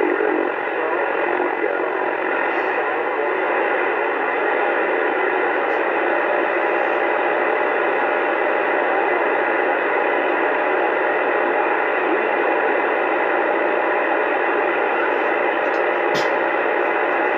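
Steady AM static hissing from the speaker of a Uniden Bearcat 980 CB radio tuned to channel 28, with no strong station coming through.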